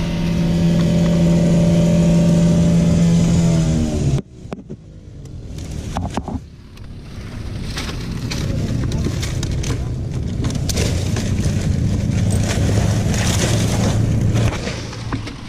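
A small engine running at a steady high speed winds down and stops about four seconds in. Dry palm fronds then crackle and rustle against the climber, with a lower engine hum underneath that fades near the end.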